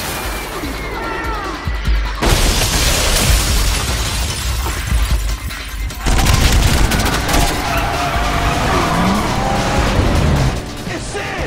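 Action-film soundtrack: music mixed with crash and impact effects and car sounds, with a loud crash-like burst about two seconds in.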